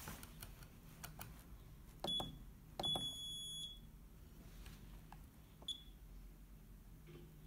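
Keypad beeps from a DDCS V1.1 CNC controller as its buttons are pressed. There is a short beep about two seconds in, a longer beep lasting almost a second soon after, and another short beep near the end. A few faint key clicks come in the first second.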